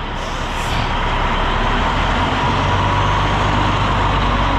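Diesel engine of an Oshkosh concrete mixer truck running, with a steady whine over it; the low rumble gets louder about two seconds in.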